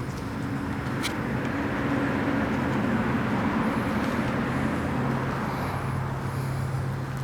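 A road vehicle passing by, its noise swelling and then fading over a few seconds, over a steady low hum, with one sharp click about a second in.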